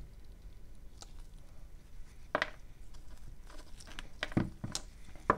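Side cutters snipping the nichrome resistance wire of a broken-open ceramic wirewound resistor, with handling of the ceramic and cement pieces: a few sharp clicks and snaps from about two seconds in, the loudest near the end.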